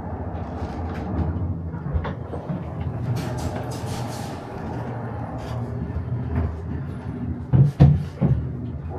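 Steady low hum of the indoor airsoft arena with scattered clicks and knocks. A short hissy rattle comes about three to four seconds in, and two heavy thumps close together near the end are the loudest sounds.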